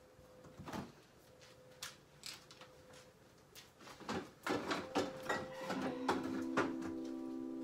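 Scattered knocks and clatter of things being handled on a kitchen counter, over a faint steady hum. Background music with sustained chords comes in about six seconds in.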